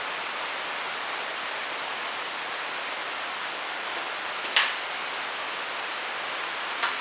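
Steady hiss with no other sound under it. A single sharp click comes about four and a half seconds in, and a fainter one comes near the end.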